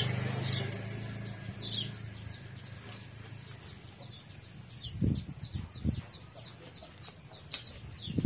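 Chickens peeping, a long run of short high falling calls about two or three a second. A low motor hum fades away over the first couple of seconds, and a few dull knocks come about halfway through.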